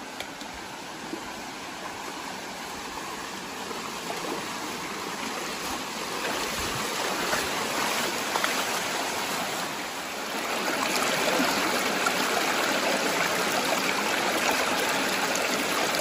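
Shallow stream rushing over rocks: a steady hiss of running water that grows louder, dipping briefly about ten seconds in.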